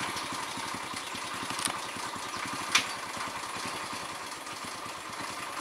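An engine idling steadily with a rapid, even low chugging. A single sharp click about halfway through is the loudest moment.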